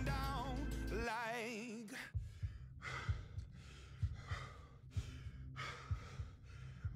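A song with wavering sung notes fades out in the first two seconds. Then a person breathes hard with exertion, a string of heavy, sighing exhalations roughly one a second.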